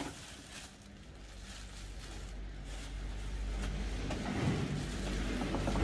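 A sharp click, then a low, steady motor hum that grows gradually louder.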